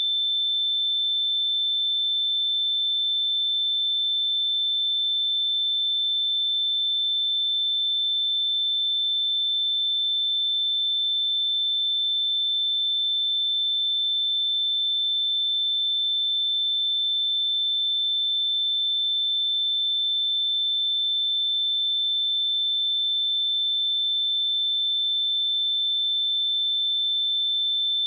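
Pure 3542 Hz sine-wave test tone, a single high-pitched steady tone held at constant level with no change.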